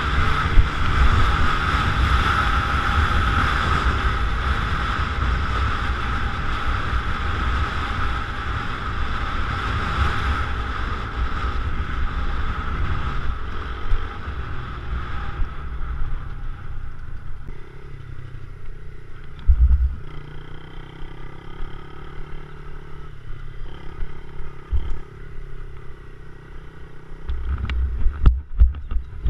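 Yamaha TT-R50 mini dirt bike's small single-cylinder four-stroke engine running as the bike rides along, with wind noise on the microphone. The sound drops to a quieter, lower engine note about halfway through, and there are low thumps near the end.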